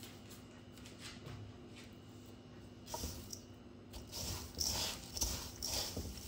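Hands pressing battered shrimp into coarse breadcrumbs in a stainless steel bowl. The crumbs rustle and crunch in uneven bursts that start about halfway and grow louder.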